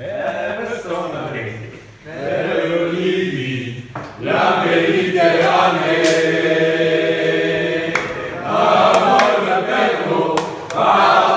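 A group of people singing a chant together in phrases, with long held notes in the middle.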